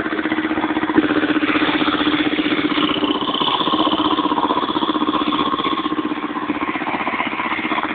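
A vehicle engine running steadily at close range, with a rapid, even chugging pulse.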